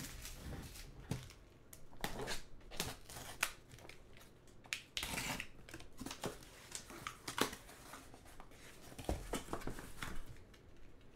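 A cardboard shipping case being handled and opened by hand: scattered taps, scrapes and rustles of cardboard, with a longer scraping rasp about five seconds in.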